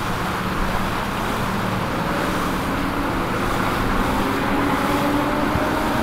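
Engines running under a steady wash of motor and water noise. From about three seconds in, one engine's pitch climbs slowly and steadily as it speeds up.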